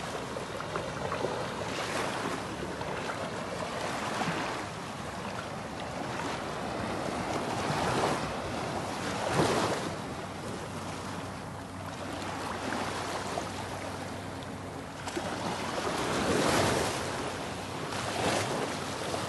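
Small ocean waves washing up the beach and drawing back, the surf swelling in surges every few seconds.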